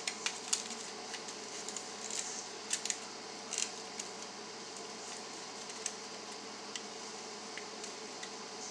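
Light clicks and rustles of hands handling a fursuit head base of plastic canvas mesh with foam eyes, over a steady hiss. The clicks come thickest in the first few seconds and thin out after.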